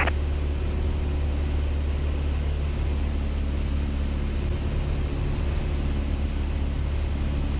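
Piper Cherokee PA-28-180's four-cylinder Lycoming engine and propeller droning steadily in cruise flight, heard from inside the cockpit.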